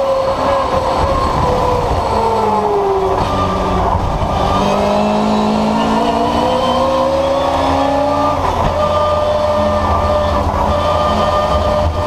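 Historic touring race car's engine heard from inside the cockpit. The engine note falls for about three seconds as the driver lifts off for a corner, then rises hard under acceleration. About eight and a half seconds in it drops suddenly at an upshift and climbs again.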